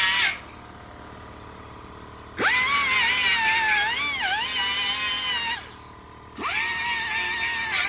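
Handheld power tool with a wire wheel stripping rust and paint from old sheet steel, run in short bursts: it cuts off just after the start, spins up again with a sharply rising whine about two and a half seconds in, runs for about three seconds with its pitch dipping and recovering, stops, and spins up again about six and a half seconds in.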